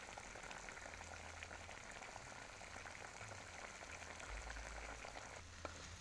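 Chicken giblets, intestines and feet with stink beans sizzling in a wok: a steady light crackle that thins out near the end, with one sharp click.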